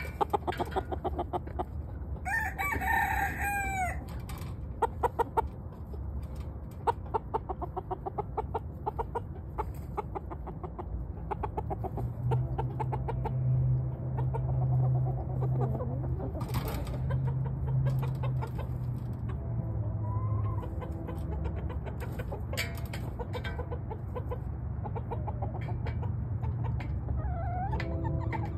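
Domestic chickens clucking with quick, repeated short notes, and a drawn-out crowing call about two seconds in.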